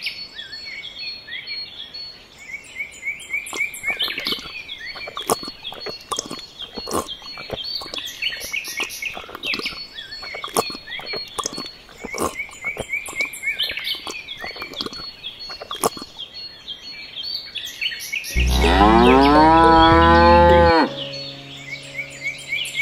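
A cow moos once, long and loud, for about two and a half seconds, starting about eighteen seconds in, its pitch dropping at the end. Before it there is busy high bird chirping.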